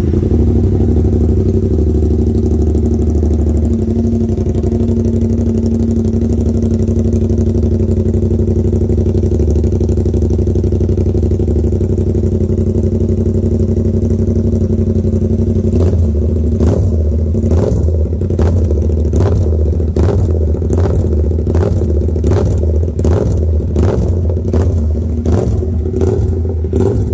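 2022 Yamaha R7's 689 cc parallel-twin engine through an SC-Project slip-on exhaust, catching at the very start and idling steadily for about fifteen seconds. It then takes a quick run of short throttle blips, a little more than one a second.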